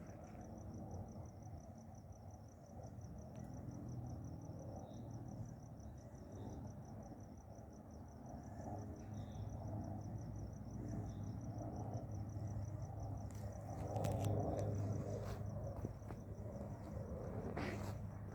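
A cricket chirping steadily in a fast, even trill. Under it, the low rumble of a distant helicopter, a Leonardo AW139, grows and is loudest about fourteen seconds in.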